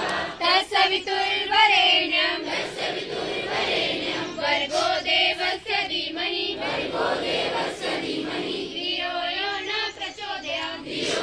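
A group of schoolgirls singing a prayer song in unison into a microphone, in phrases with short breaths between them.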